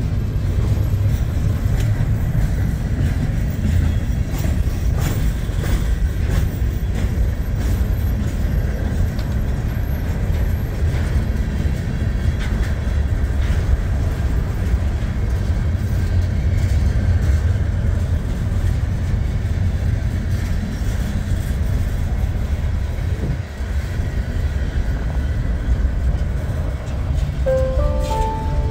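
Freight train cars rolling past at the trackside: a steady, loud low rumble of wheels on rails, with scattered clicks.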